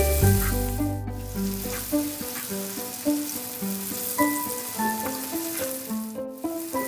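Food frying in a hot pan: a steady sizzling hiss that drops out briefly about a second in and again near the end, over background music with a stepping melody.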